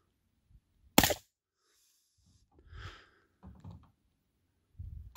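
SKS rifle in 7.62×39 mm fired twice, about four seconds apart: one sharp shot about a second in and another right at the end.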